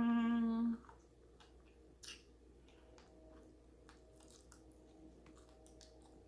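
A woman's held "mmm" hum for about a second at the start, then close-miked eating sounds: soft chewing of fried chicken with scattered small mouth clicks and smacks.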